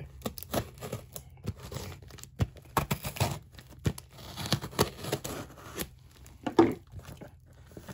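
A knife slicing along the taped seam of a cardboard shipping box: a run of irregular scratchy scrapes and clicks as the blade cuts the packing tape, with tape and cardboard crinkling.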